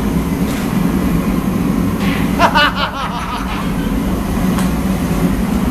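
Steady low mechanical rumble, with a short wavering voice about halfway through.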